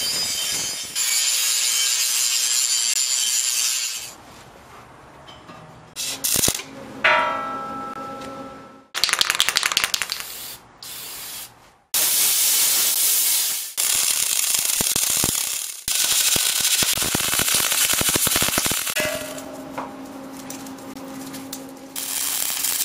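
Several separate bursts of metalworking on steel and cast iron, starting and stopping suddenly: angle grinder grinding, steel plate being cut with a shower of sparks, and the crackle of a MIG welding arc.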